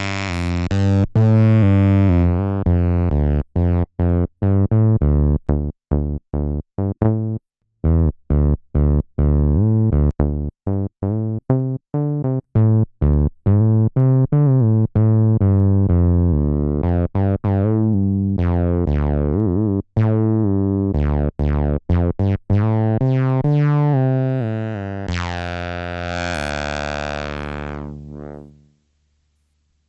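Behringer TD-3 analog bass synth playing a sequenced acid bassline of short, staccato notes, with a resonant filter sweeping the tone brighter and darker. Near the end a long held note opens up brighter, then dies away about a second before the end.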